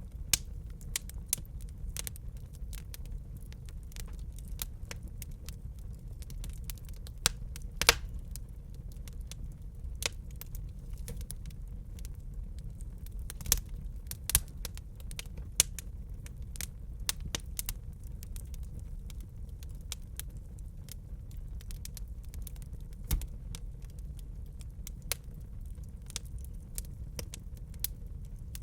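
Wood fire in a fireplace crackling: irregular sharp pops and snaps, a few louder ones scattered through, over a steady low rumble.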